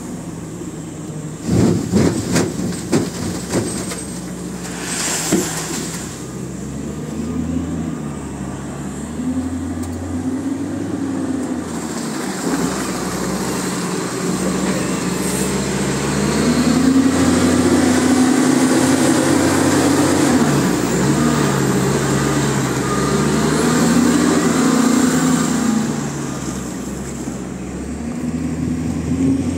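Cat 966 wheel loader's diesel engine working, its pitch rising and falling repeatedly as the machine reverses, drives and lifts its loaded bucket. About two seconds in, a run of knocks and rattles as the bucket is tipped and sand drops into the steel tipper body.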